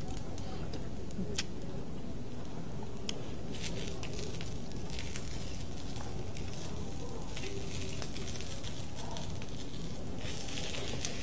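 Assorted beef intestines (sogopchang) sizzling and crackling on a hot griddle pan, with scattered sharp pops over a steady low rumble. The sizzle grows denser about three and a half seconds in and again near the end.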